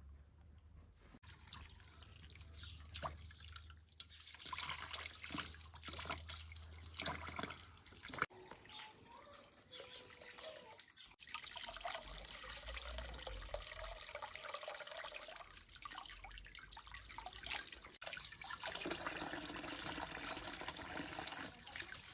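Water running and splashing, with drips and small clicks and knocks, as when something is washed under a tap.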